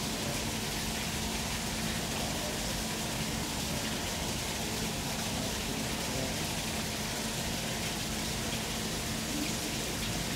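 Steady rushing noise over a faint low hum, with no distinct events.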